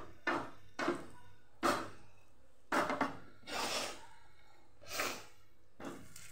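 About ten short knocks and scrapes, with one slightly longer rubbing noise a little past the middle, as peeled boiled baby potatoes are put into a non-stick pan of hot oil.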